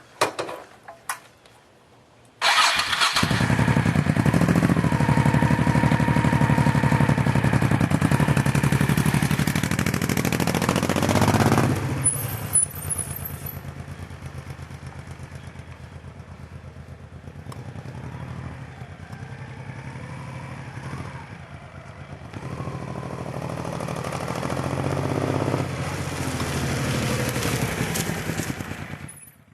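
Honda Shadow VT1100C V-twin engine: a few clicks, then the engine fires about two and a half seconds in and runs. It revs up sharply around the middle and settles back to idle, climbs gradually near the end, then cuts off abruptly.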